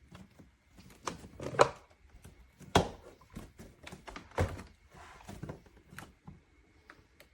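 Irregular plastic clunks and clicks of a Tineco iFLOOR 3 cordless wet-dry floor cleaner being lifted and set back into its charging and self-cleaning base several times, trying to start the self-cleaning cycle, which does not start.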